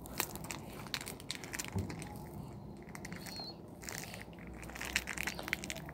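Foil booster-pack wrapper crinkling with irregular crackles as hands work it open.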